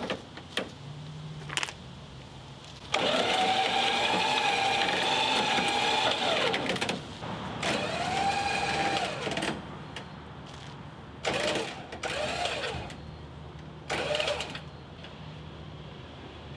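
Electric trailer winch motor whining under load as it reels in its cable to drag a truck up onto the trailer. It runs in stop-start pulls: a long pull of about four seconds, a shorter one, then a few brief blips.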